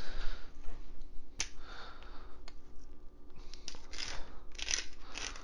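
Hand-held pepper mill grinding pepper over a pot: a quick run of short grinding twists starting past the middle, after a few light clicks as it is handled.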